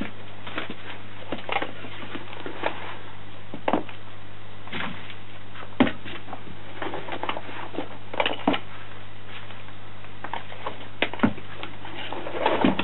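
Soil being scooped out of a plastic bucket with a small plastic pot: irregular scrapes, rustles and light plastic knocks, over a steady low hum.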